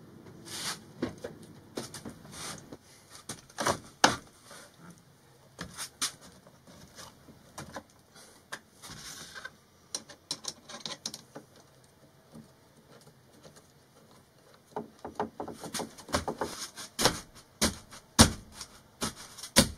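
Irregular taps, knocks and clicks of hand work on a cabinet being fitted, handled and worked at with a hand screwdriver to mark its screw holes; a quieter spell just past the middle, then a busier run of knocks near the end.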